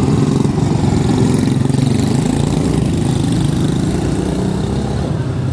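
Several quarter midget race cars, each with a small single-cylinder Briggs & Stratton Animal four-stroke engine, running together on track in a steady, overlapping drone.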